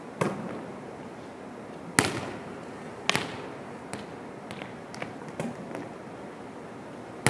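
Volleyballs smacking off hands and bouncing on a hardwood gym floor: a few sharp smacks, the loudest about two seconds in, then several lighter bounces, each ringing in the gym's echo.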